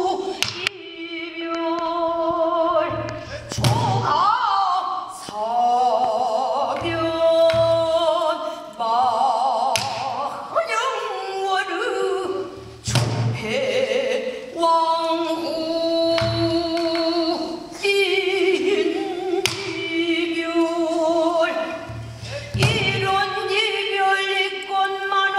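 Pansori singing: a woman sings held, wavering notes with a wide vibrato, accompanied by a buk barrel drum. The drum gives spaced low thumps and sharp stick strokes that mark the rhythm.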